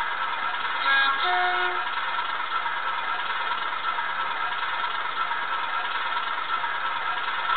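Sound chip in an N gauge Class 37 model playing a Class 37 diesel engine idling through the model's small speaker: a steady, thin drone with little bass. A brief pitched sound comes in about a second in.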